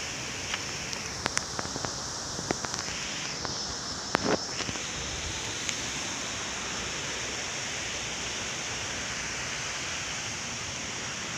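Steady rushing of a rocky forest river, with a thin high steady tone above it and a few light taps in the first few seconds.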